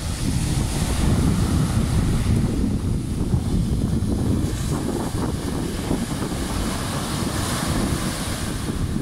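Strong sea wind buffeting the microphone with a heavy, unsteady rumble, over the hiss of small waves breaking and washing up the beach.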